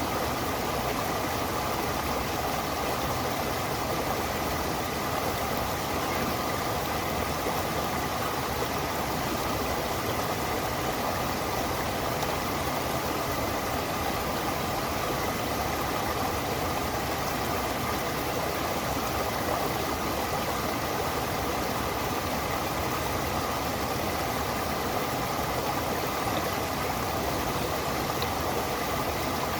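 Stream and waterfall water rushing steadily, with a faint steady high tone running through it.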